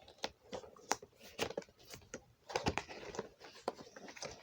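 Toy action-figure packaging being opened by hand: a run of irregular clicks, taps and rustles as the box and its contents are handled.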